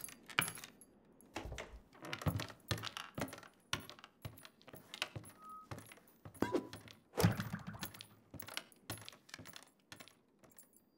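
Foley for an animated saloon scene: an irregular run of small clinks, clicks and taps, with darts striking a dartboard. The loudest knock comes about seven seconds in.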